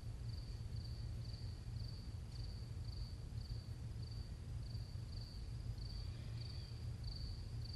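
Faint cricket chirping steadily, about two chirps a second, over a low steady hum.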